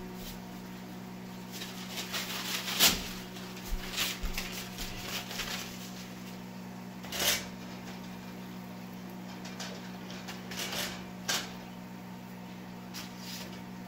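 A metal fork clinking and scraping against an enamel frying pan as fritters are turned and lifted out of shallow oil, making a scatter of sharp clicks and short clatters. The loudest click comes about three seconds in. A steady low hum runs underneath.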